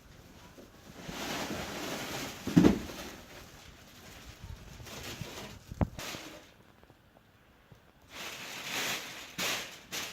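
TV packaging being handled during unboxing: rustling of wrapping, a loud thump about two and a half seconds in, a sharp knock near six seconds, and more rustling near the end.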